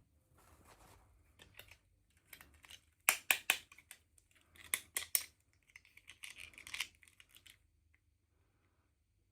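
Small plastic toy parts and packaging being handled: a run of irregular sharp clicks and light rustling, with the loudest clatter of clicks about three and five seconds in and a short scraping rustle near the end.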